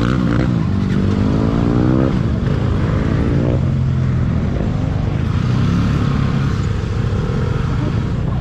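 Motorcycle engine accelerating hard. The pitch climbs, drops about two seconds in as it shifts gear, and climbs again, then settles into steady riding under a low rumble.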